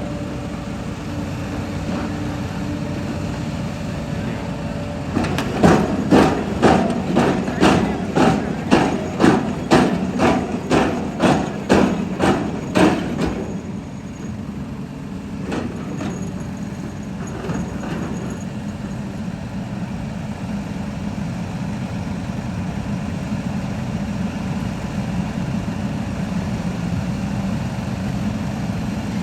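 Steady engine hum from construction machinery, with a run of about fifteen sharp hammer blows, about two a second, that starts about five seconds in and stops after about eight seconds.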